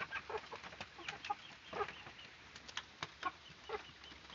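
Chickens clucking softly in short, scattered calls, mixed with light taps.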